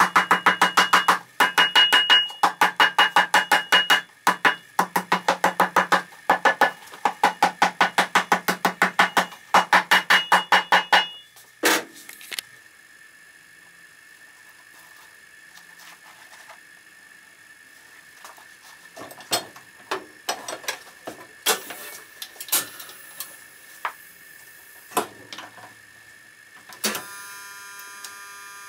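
Cobbler's hammer striking a shoe held on an iron last stand, about four to five ringing blows a second in short runs with brief pauses. The hammering stops about eleven seconds in, leaving quieter scattered clicks and knocks from handling the shoe.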